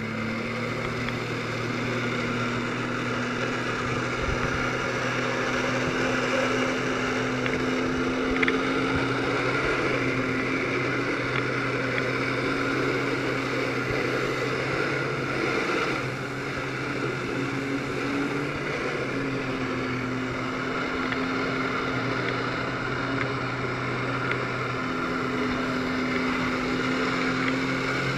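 Personal watercraft engine running at steady high revs, driving its jet pump to feed water up the hose to a flyboard, with a rush of water and wind noise over it. The engine note holds level but dips briefly a few times.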